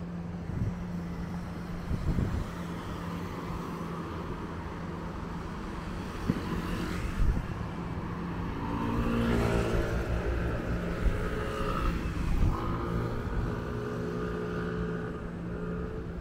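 Street traffic at a city intersection: a steady low engine hum, with a motor vehicle passing by around the middle, its engine pitch rising then falling, and more engine tones near the end. A few short thumps stand out here and there.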